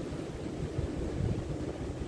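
Spring wind gusting on the microphone as a low, uneven rumble, a little stronger about a second in, over the steady rush of water by the shore.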